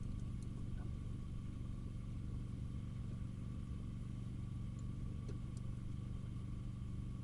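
Steady low mechanical hum in the background, with a few faint light clicks now and then.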